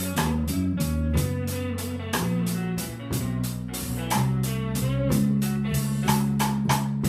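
A live blues band playing a slow blues instrumental passage: electric guitar over bass guitar and a drum kit keeping an even beat, with no vocals.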